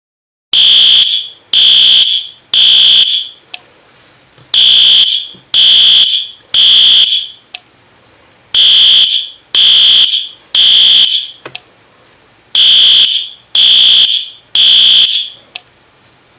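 Fire alarm sounding the temporal-three evacuation signal. Its loud, high-pitched beeps come in groups of three, each beep just under a second long, with a pause of about a second and a half between groups; four groups are heard.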